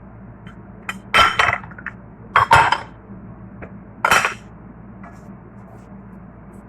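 A cooking utensil clattering against cookware in three short bursts, a second or so apart.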